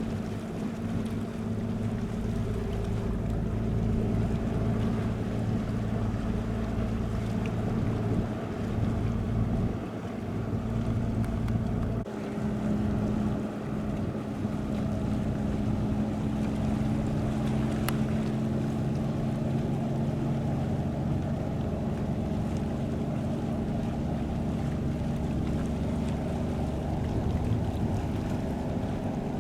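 A ship's engines run with a steady low hum over wind noise on the microphone. The engine note changes about twelve seconds in.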